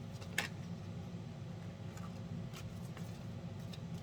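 Tarot cards being handled and laid down: a sharp card snap about half a second in, then a few faint clicks and rustles, over a steady low hum.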